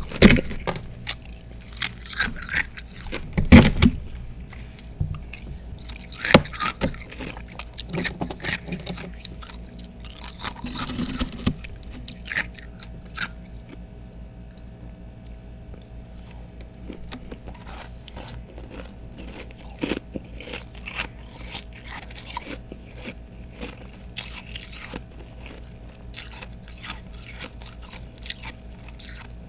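A person biting and chewing freezer frost and ice chunks close to the microphone. Loud crunching bites come in clusters for about the first dozen seconds, then give way to quieter, steady crunching as the ice is chewed down.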